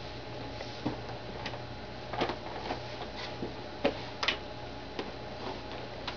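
Irregular light clicks and knocks as an English saddle is lifted onto a lap and handled, over a steady low hum.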